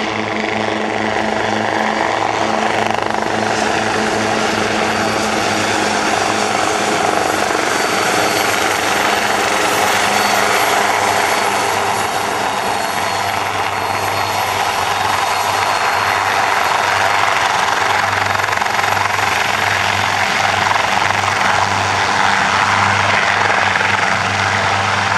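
Two light helicopters flying low in formation: a loud, steady drone of their engines and rotors.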